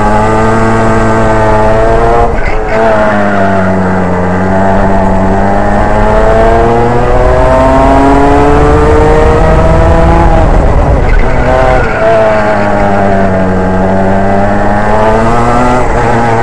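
Racing kart engine at race pace, close to the microphone: its note climbs steadily along the straights and drops sharply under braking for corners, three times.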